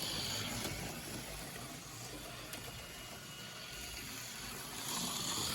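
HO-scale Johnny Lightning Thunderjet 500 slot car running laps on the track: a steady whir of its small electric motor with the rattle of the car on the rails, swelling louder near the start and again near the end as it passes close by. The car has not yet been oiled or broken in.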